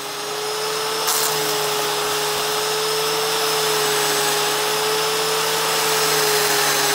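WORX WG896 corded electric edger running as its blade cuts a line along the concrete edge of a lawn: a steady, higher-pitched motor whine over the hiss of the blade, a little noisy, turning briefly louder about a second in.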